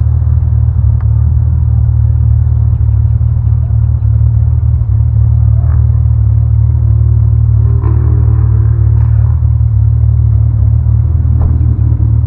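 BMW E34 525i's straight-six engine idling while stationary, heard as a steady, loud, deep rumble through a camera mounted on the car's body. Fainter wavering tones come in briefly about eight seconds in.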